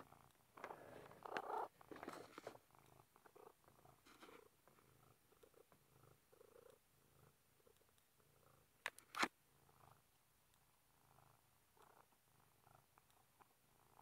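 A domestic cat purring faintly and steadily in an even rhythm. Rustling comes in the first couple of seconds, and two sharp clicks come about nine seconds in.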